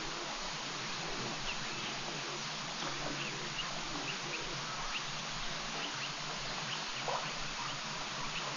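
Outdoor ambience at a waterhole: a steady background hiss with scattered faint, short animal chirps and one slightly louder short call about seven seconds in.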